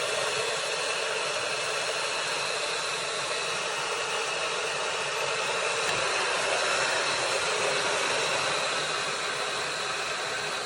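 Chefman 1.8 L 1500 W electric kettle boiling water: a steady rumbling hiss that swells slightly past the middle.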